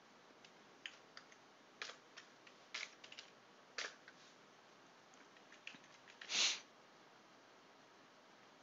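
Faint computer keyboard keystrokes, a few separate clicks spread over several seconds, as a command is entered and its output paged through in a terminal. A short, louder puff of noise comes about six seconds in.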